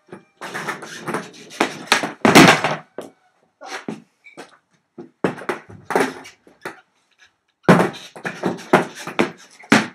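Skateboard and skate shoes on loose plywood sheets: the board clattering and slapping on the wood in three quick runs of sharp knocks and scrapes, with short quiet gaps between.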